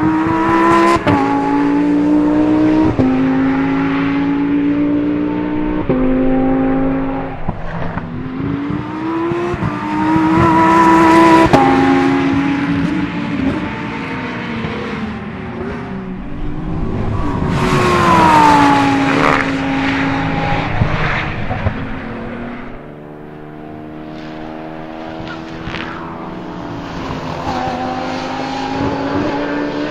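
Lamborghini Huracán Super Trofeo EVO2 race car's naturally aspirated 5.2-litre V10 running hard, its pitch jumping abruptly at quick gear changes and rising and falling as the car passes, with one sharp falling sweep about two-thirds of the way through. After that the engine sound drops back, quieter and more distant.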